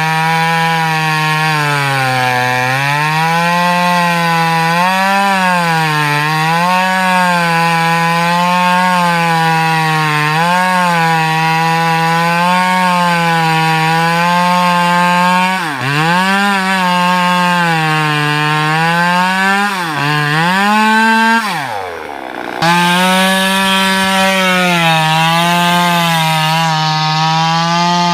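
Two-stroke top-handle chainsaw cutting into teak wood, its engine note wavering up and down under load. About 21 seconds in the note falls sharply and nearly stops for about a second, then comes back up and cutting continues.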